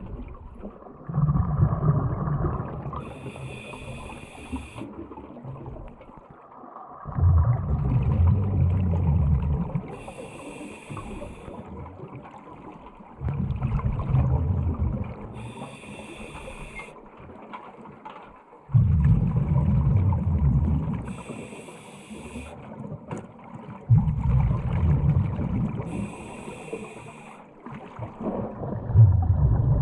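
Scuba diver breathing through a regulator underwater: a hissing inhalation alternating with a low gush of exhaled bubbles, a full breath about every five to six seconds.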